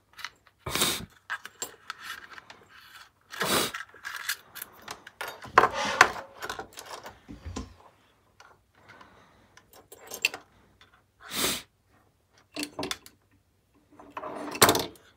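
Handling noise of thin speaker cables being pulled, rubbed and untangled and a small plastic speaker case being moved: irregular rustles and scrapes, with a few louder ones spread through.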